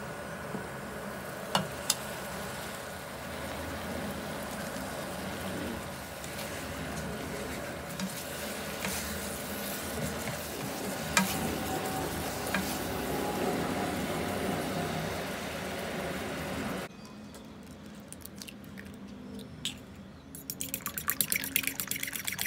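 Chicken sizzling and bubbling in a sweet sauce in a frying pan. A glass lid clinks twice as it is lifted about two seconds in, then a spatula stirs and scrapes through the pan. After a cut, a fork beats eggs in a bowl with rapid clicking near the end.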